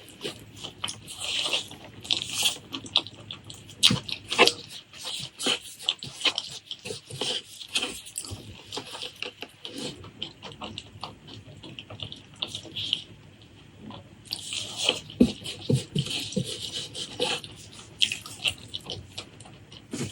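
Close-miked chewing and wet lip-smacking from a person eating pork leg curry with rice: a dense run of sticky clicks and smacks, easing off for a few seconds about halfway through before picking up again.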